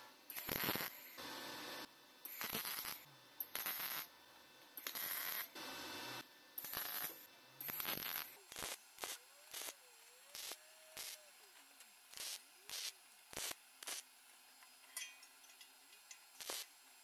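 MIG welder laying a series of short tack welds on a sheet-steel stove grate, each weld a burst of noise lasting half a second to a second, with gaps between. About halfway through these give way to a run of brief sharp ticks.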